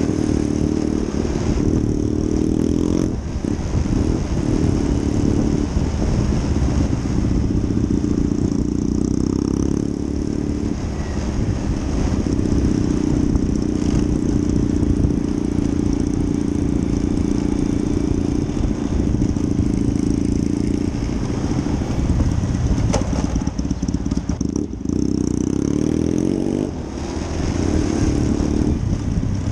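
Triumph 1200 motorcycle's stock exhaust heard from close behind while riding in traffic, mixed with the engine of the Honda Wave 100 scooter following it. The engine note rises and falls with the throttle, dipping briefly a few times.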